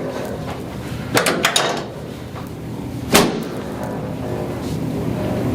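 Sharp cracks and impacts from a chiropractic adjustment of the back: a quick cluster of four cracks about a second in, then one louder crack about three seconds in, over a steady low hum.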